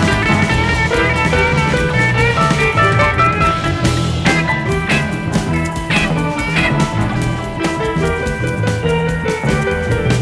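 Background music: a rock-style track with guitar and a steady drum beat.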